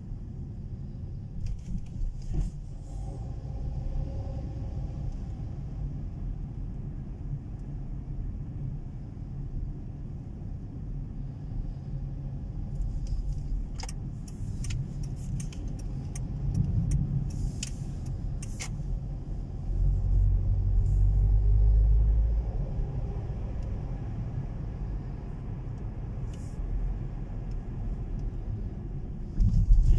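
Steady low rumble of a motor vehicle, with a cluster of sharp clicks and knocks in the middle and a louder swell of rumble about twenty seconds in.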